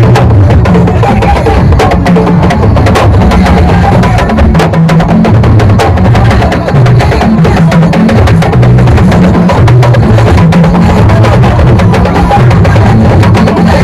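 Loud drum-heavy music: rapid, sharp percussion strikes over a low bass line that moves between notes.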